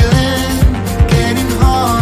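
Upbeat pop background music with a steady beat.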